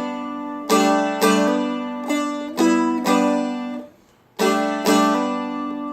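Seagull Merlin, a dulcimer-style fretted instrument, picked slowly as a melody line of single notes over ringing drone strings, with a hammer-on; about seven picked notes, with the strings briefly damped just before four seconds in.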